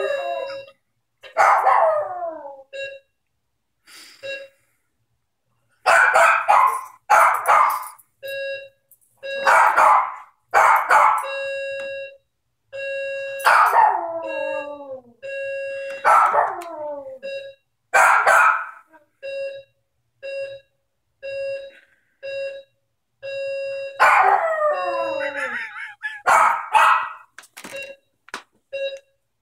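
Maltese dog howling and barking in about eight loud bursts, several sliding down in pitch, set off by an electronic doorbell that keeps ringing on its own. The doorbell's steady chime tone sounds throughout, pulsing about once a second in the second half.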